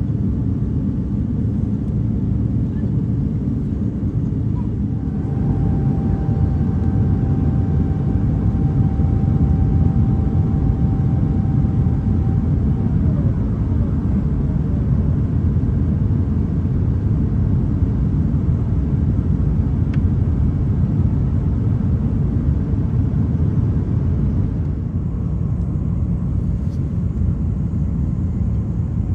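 Steady low rumble of cabin noise inside an Airbus A350-900 airliner in flight, from its engines and the airflow over the fuselage. A faint steady tone sounds over it for several seconds, starting about five seconds in.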